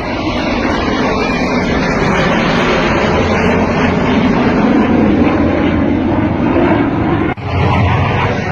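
Aircraft flying past at an air show, a loud engine roar that swells toward the middle. It breaks off for an instant about seven seconds in and resumes.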